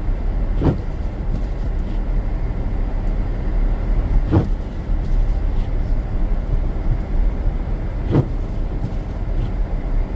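Steady low rumble of tyres and engine heard inside a moving Ford Edge on a snowy road, with a brief sweeping sound that comes back about every four seconds, three times.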